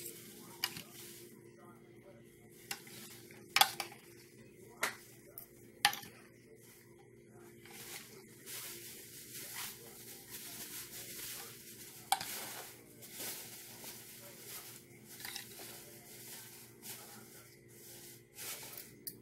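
A metal fork mixing mayonnaise-dressed shredded cabbage in a dish. Sharp clinks of the fork against the dish come several times in the first six seconds and once more about twelve seconds in, with a steady rustle of the mixing in between.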